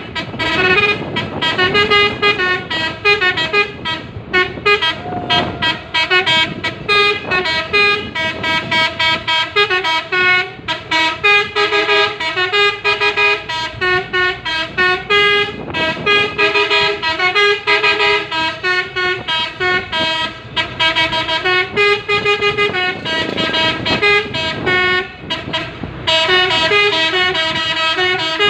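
Horn of a Mitsubishi Fuso sand dump truck sounding a long run of short notes that step up and down in pitch, like a tune.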